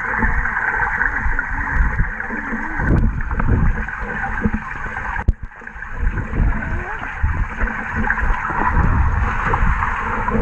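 Muffled water sloshing and gurgling around a camera housing held half under the surface, with irregular low thumps as the water buffets it and a sharp click about halfway through.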